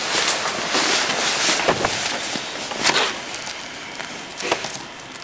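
Close handling noise, rustling and scraping, with a few sharp knocks, the clearest about three seconds and four and a half seconds in, as a knife cuts a small lump on a sheet of newspaper.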